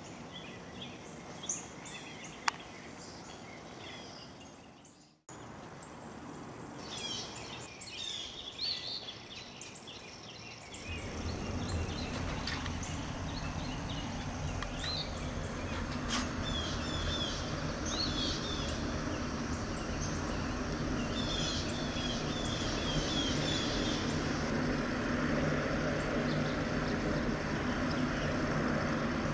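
Outdoor marsh ambience with birds chirping. Then, after a short break, a steady low industrial drone with a constant high whine sets in about eleven seconds in and keeps running under the bird calls: the recorded running noise of the GREC biomass incinerator plant.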